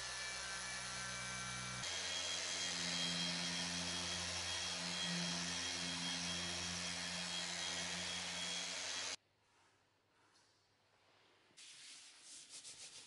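Small cordless rotary polisher running against gloss-black exhaust trim: a steady motor whine that changes tone about two seconds in and cuts out suddenly about nine seconds in. Near the end, faint rhythmic rubbing.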